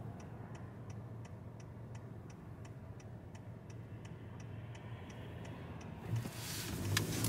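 A car's turn signal clicking steadily, about two clicks a second, over a low steady hum. The clicking stops about six seconds in, and a louder rushing noise rises as the car moves off.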